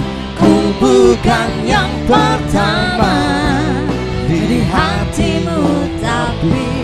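Live band music with a female voice singing a wavering melody into a microphone over electric guitar and drum kit.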